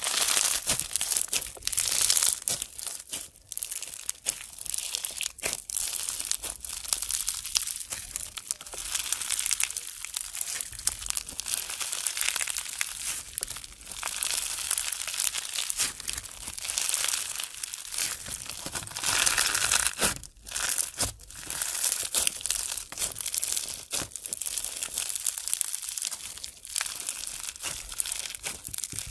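Blue crunchy slime packed with small white beads, squeezed and stretched by hand, giving a dense, continuous run of crackles and pops with short lulls.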